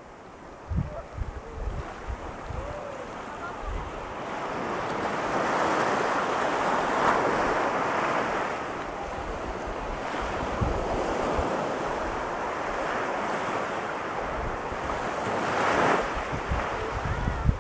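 Pacific Ocean surf breaking and washing up a sandy beach, swelling to a peak about six seconds in and again just before the end. Wind buffets the microphone with low rumbles at the start and end.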